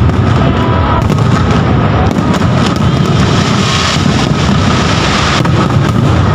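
Aerial fireworks shells bursting in rapid, overlapping succession: a dense, loud, unbroken barrage of bangs.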